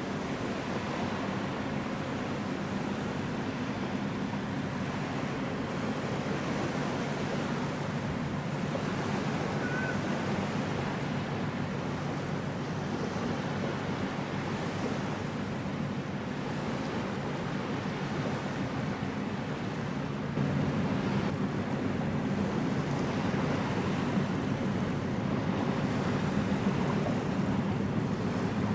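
Wind and water noise with a steady low drone from a passing container ship's engine; the sound steps up in level about two-thirds of the way through.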